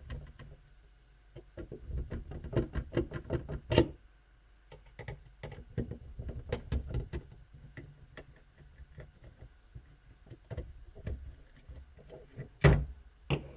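Spurts of rapid light clicking as a small screwdriver loosens the screws of a laptop's CPU heatsink, with a sharper click about four seconds in and a louder knock near the end.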